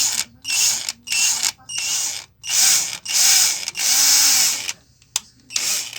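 Hummer PLI12 cordless drill/driver running forward in about seven short bursts with brief gaps, with a sharp click near the end. The strange noise goes with its fault: it cuts in and out and will not reverse.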